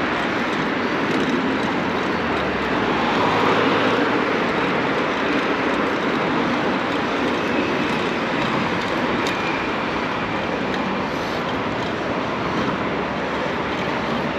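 Steady rush of wind and road noise from a bicycle in motion, swelling a little about three seconds in.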